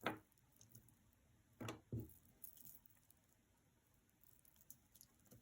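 Near silence with a few soft clicks of jewelry being handled: one right at the start and two close together at about two seconds in.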